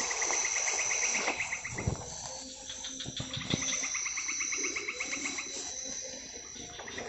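Night insect chorus: a rapid pulsing trill that breaks off about two seconds in and starts again a second later, over a steady high-pitched buzz. A few soft knocks come through as well.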